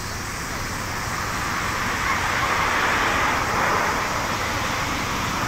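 Airbus A330-223's two Pratt & Whitney PW4000 turbofans at takeoff thrust just after liftoff: a rushing jet noise that grows louder, peaking about three seconds in, then easing slightly.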